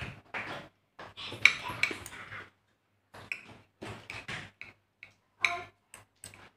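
Metal spoons clinking and scraping on porcelain plates and bowls while people eat, a string of short, separate clinks, the sharpest about one and a half seconds in.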